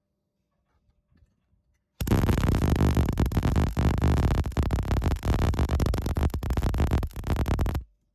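MIG welder striking an arc about two seconds in and running a continuous bead for about six seconds with a steady crackling buzz, then stopping abruptly.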